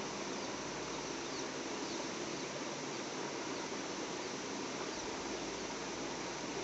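Steady outdoor hiss with a few faint, short, high chirps scattered through it.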